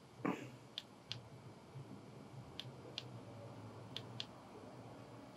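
Faint clicks from the control knob and buttons of a QYT KT-7900D mobile radio being worked by hand, in three quick pairs. A brief downward-sliding sound just at the start is the loudest moment, over a low steady hum.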